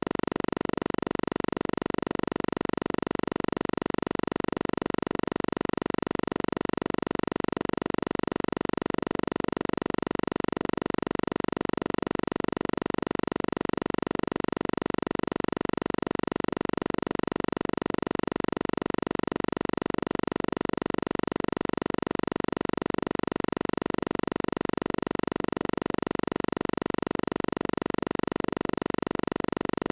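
A steady electronic drone that never changes in pitch or level, its energy mostly low-mid.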